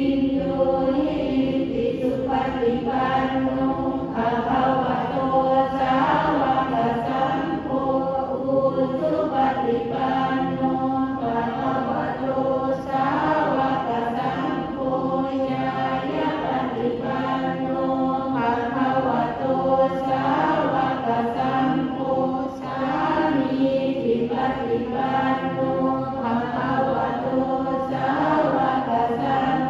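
A group of voices chanting Buddhist prayers in Pali in unison: a steady, unbroken recitation at an even loudness.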